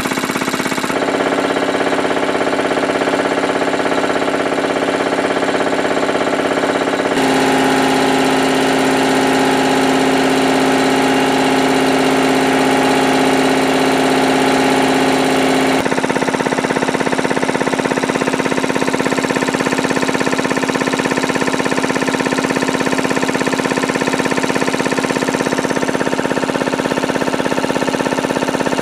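Matsubara CMH 114A two-stage piston air compressor, driven by its electric motor, running steadily. Its tone shifts abruptly a few times, about a second in, about seven seconds in, and about sixteen seconds in.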